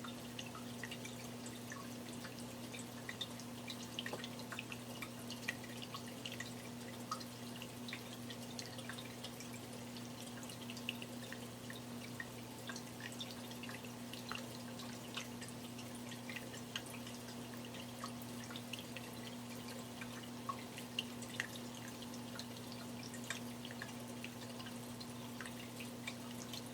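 Tabletop stone water fountain running: water bubbling and trickling down the rock, with many small irregular drips into the basin pool over a steady low electric hum.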